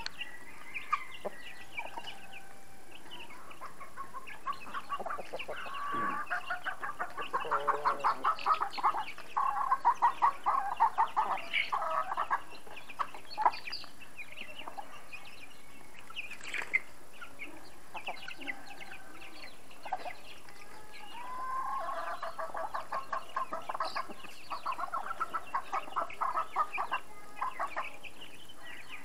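A flock of chickens clucking while pecking at scattered grain. There are two long runs of rapid clucks, each several seconds long, one about a quarter of the way in and one near the end, with short high chick peeps scattered throughout.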